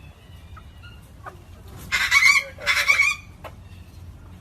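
A pet bird gives two harsh, loud squawks about two and three seconds in, each about half a second long.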